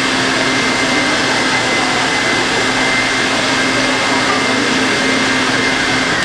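Electric stand mixer running at high speed with a steady motor whine, beating egg yolks and sugar.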